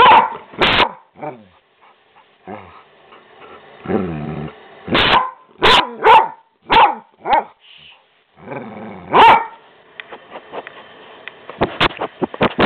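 English springer spaniel 'talking': mouthy grumbling moans mixed with short barks. There is a quick run of five barks in the middle and another bark a couple of seconds later. Near the end there is rustling handling noise.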